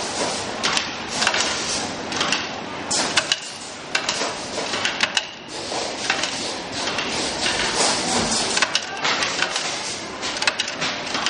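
Workshop machinery clattering: irregular clicks and knocks from bag-making machines over a steady mechanical din.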